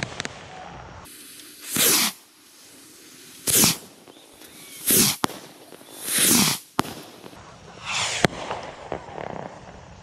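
Bottle rockets launching one after another from a rack, set off in turn by a chain of cake fuse. There are five rushing whooshes about a second and a half apart, each dropping in pitch, with three sharp cracks of rockets bursting in between.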